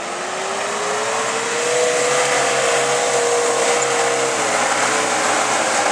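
Off-road 4x4 engine revving up over about two seconds, then held at high revs with a steady drone over loud rushing noise.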